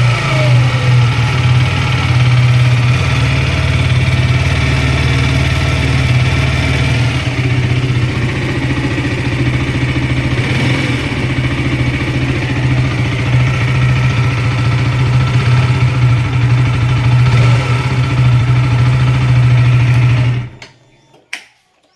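KTM RC single-cylinder motorcycle engine running steadily at idle, making a sound the owner finds abnormal and cannot explain. It stops abruptly near the end.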